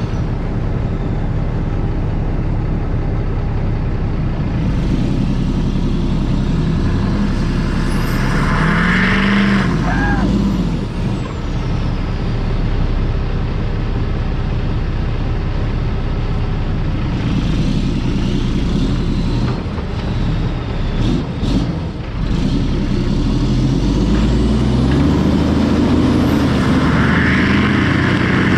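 Diesel truck engines working hard as a one-ton service truck tries to pull a loaded semi truck free on a chain. The engines surge up and back down twice, with a hiss at each peak, and the semi does not budge.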